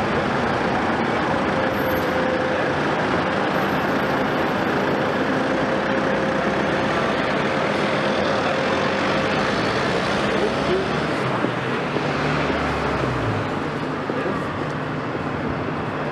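A heavy diesel engine running steadily amid road-traffic noise, with a thin steady whine in the first half and a lower engine note that drops in pitch near the end.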